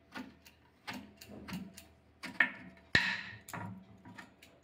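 Kitchen knife chopping eggplant on a wooden cutting board: a run of short knocks of the blade on the board, uneven, about two or three a second, with a couple of louder strikes near the middle.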